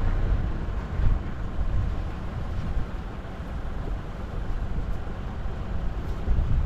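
Toyota Land Cruiser Prado driving along a rough green lane, a low rumble of engine and tyres heard from a roof-mounted camera, with wind buffeting the microphone. The rumble swells briefly about a second in and again near the end.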